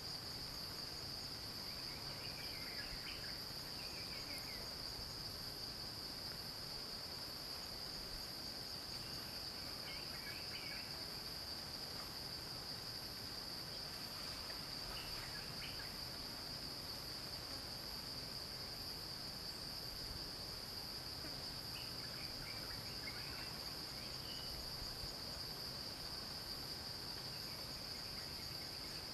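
Steady high-pitched drone of insects in a forest chorus, unbroken throughout, with faint short chirps now and then.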